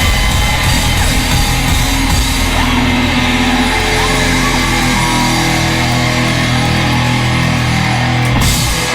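Rock band playing live through a theatre PA, with distorted guitars, bass and drums holding long sustained notes; the cymbal and high end drop away near the end.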